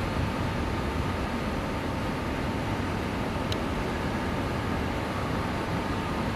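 Steady outdoor background noise: an even hiss over an unsteady low rumble, with a faint steady hum and one brief tick about three and a half seconds in.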